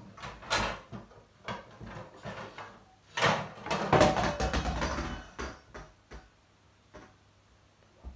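Kitchen cookware and cupboards being handled: a string of knocks and clicks, then a louder rattling clatter about three seconds in that lasts a couple of seconds, like pans being pulled out from a low cupboard or drawer.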